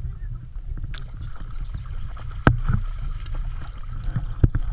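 A dog wading through a shallow stream, water sloshing around its legs over the steady babble of the flowing water, with sharp splashes about halfway through and twice in quick succession near the end.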